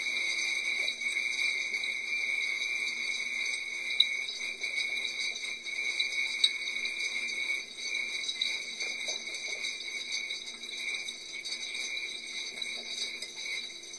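Dishwasher running mid-wash, heard from inside the tub: a steady high-pitched whine with a low hum under it, plus a couple of sharp ticks.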